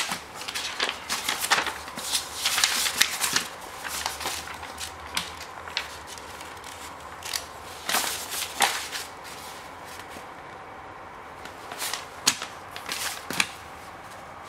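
Paper operating-manual booklet being handled and its pages leafed through: short crisp rustles and flicks of paper, many in quick succession, then a lull of a couple of seconds and a few more near the end.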